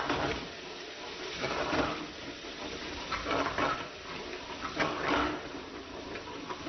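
Spinach purée sizzling in hot oil in a frying pan while a metal ladle stirs it, scraping against the pan every second or two.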